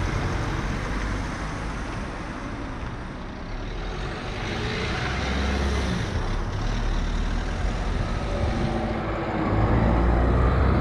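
Cars driving past at close range: steady engine hum and tyre noise, swelling to its loudest near the end as a hatchback passes close by.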